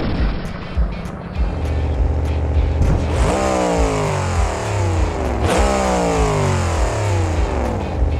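Simulated monster truck engine running over a low steady rumble, revved sharply twice, about three and five and a half seconds in, with the pitch falling away after each rev. A brief thump comes about a second in.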